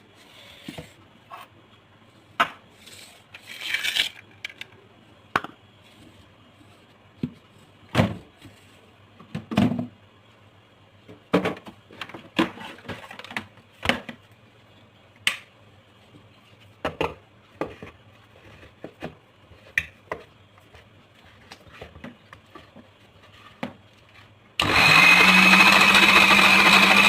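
Scattered light knocks and clicks, then near the end an electric kitchen blender switches on abruptly and runs loudly and steadily with a low hum, blending oat-and-banana pancake batter.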